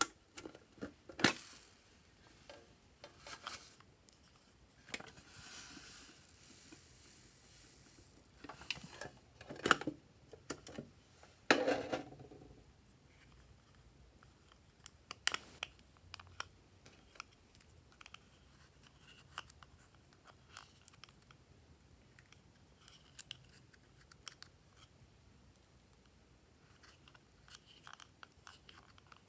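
A small plastic toy makeup compact being handled: sharp clicks and knocks as the case is turned, tapped and snapped open, with a few seconds of rustling about five seconds in. After that come soft, scratchy ticks of an applicator scraping the pressed eyeshadow.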